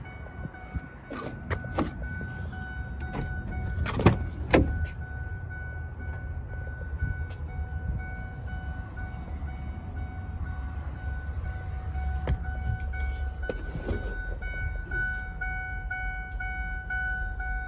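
Clicks and knocks from handling around a pickup truck's cab, with two sharp knocks about four seconds in and more clicks later on. Under them runs a steady low rumble and a thin steady high tone.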